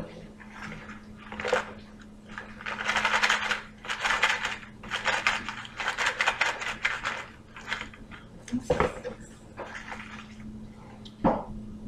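Dry roasted edamame rattling inside a clear plastic snack punnet as it is shaken. The rattling comes in a quick run of bursts for several seconds, followed by a couple of single knocks of the tray being handled.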